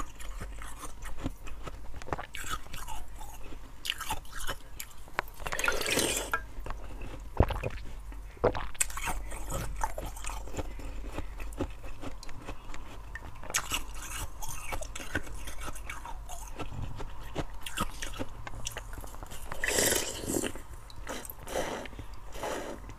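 Slushy ice from a frozen water bottle being bitten and chewed: close, irregular crunching and crackling, with a sharp snap of a bite and longer, louder spells of crunching about six seconds in and again near the end.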